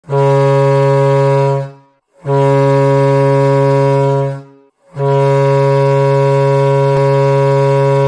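Hockey arena goal horn sounding three blasts, signalling a goal: two of about two seconds each, then a longer third blast.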